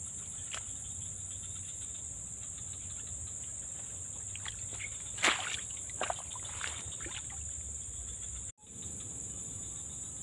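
Steady high-pitched insect chorus, with a few scattered clicks and rustles around the middle, the loudest about five seconds in; the sound drops out for an instant about eight and a half seconds in.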